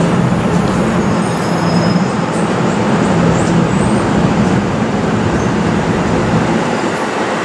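NJ Transit train of Bombardier MultiLevel bi-level coaches rolling past close by: a steady rumble of wheels on the rails, with a few faint, brief high squeals in the first half.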